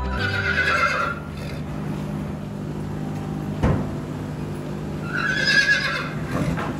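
A horse whinnying twice, each call about a second long and about five seconds apart, with a single sharp knock between them over a steady low hum.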